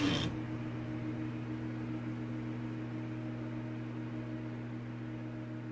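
A rapid mechanical clatter cuts off just after the start, leaving a steady low hum with faint hiss that slowly fades.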